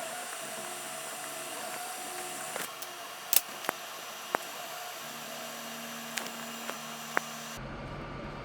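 Steady background whir and hiss with several sharp single clicks a second or so apart, typical of a computer mouse being clicked.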